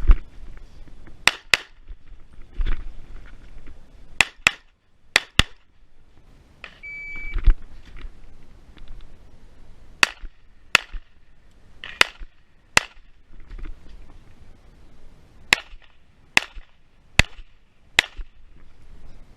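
Glock 45 9mm pistol fired in quick pairs of shots, then a string of single shots a little under a second apart, echoing. A short electronic beep sounds about seven seconds in.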